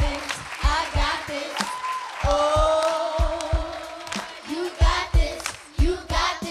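A woman and a children's choir singing a pop song over a steady low beat, about three thumps a second, with hand claps.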